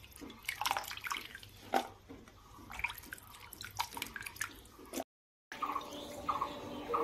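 Small fish being swished and scooped by hand in a pan of water: scattered splashes and drips of water. After a brief dropout near the end, background music comes in.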